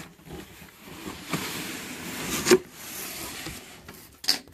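A cardboard box being opened: the packing tape is cut and the flaps are pulled apart, giving a rustling scrape with a sharp crackle about halfway through.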